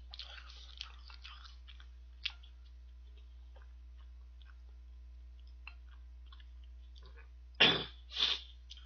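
Soft, wet chewing of boiled dumplings with scattered mouth clicks in the first couple of seconds, then a quiet stretch. Near the end come two loud, short coughs.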